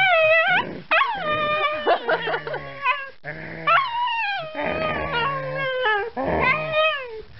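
German Shepherd puppy howling and whining in a string of short, wavering cries that slide up and down in pitch.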